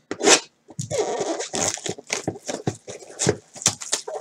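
Clear plastic shrink wrap crinkling and tearing as it is pulled off a sealed trading-card hobby box, in a run of irregular crackles.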